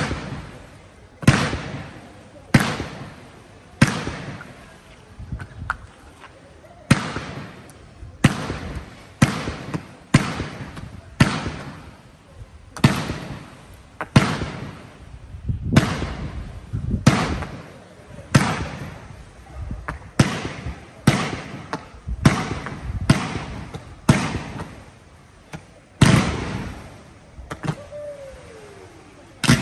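Fireworks going off in a steady barrage, a sharp bang about once a second, each trailing off briefly. A short falling whistle comes near the end.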